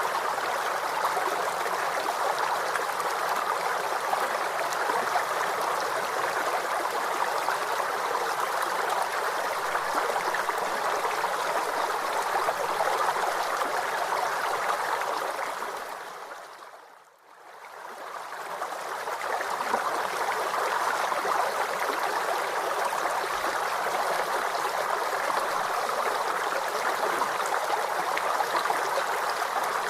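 Waterfall: a steady rush of falling water that fades almost to silence about seventeen seconds in, then swells back up.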